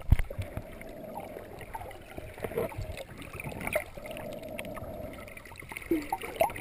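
Underwater sound picked up by a submerged camera: muffled water noise with scattered clicks and knocks, and two longer stretches of muffled hum.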